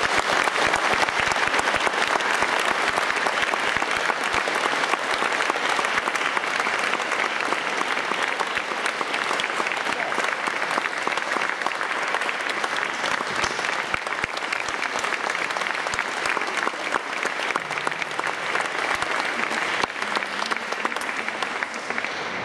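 Audience applauding in a large cathedral, dense clapping that slowly dies down toward the end.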